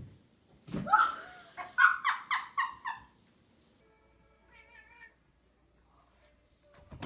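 Cat crying out loudly: one rising cry, then a quick run of about five short cries. A fainter, wavering meow follows about four and a half seconds in.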